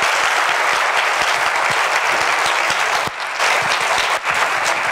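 Large audience applauding steadily, with the clapping dipping briefly a little after three seconds in.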